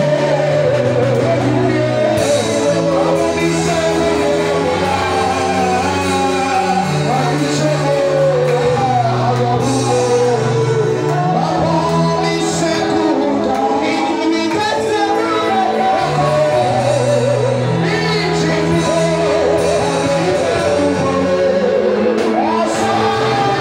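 Gospel song sung into a microphone and amplified through the hall's loudspeakers, over instrumental backing with a bass line moving in steps.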